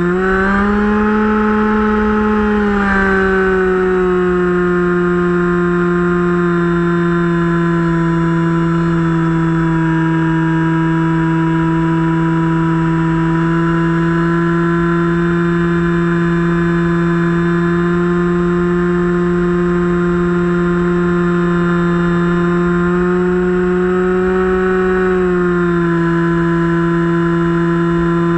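Brushless electric motor and pusher propeller of a Finwing Penguin RC plane whining steadily in flight. The pitch rises briefly about a second in and again near the end as the motor speeds up, then settles back, over a low wind rush.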